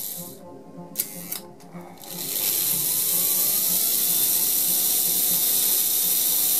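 Märklin 3066 model diesel locomotive's AC motor and gears running on a rolling-road test stand. The motor cuts out and the electromechanical reversing switch clicks about a second in, with a few smaller clicks after. The motor then starts again, its whine rising in pitch as it speeds up and then running steadily.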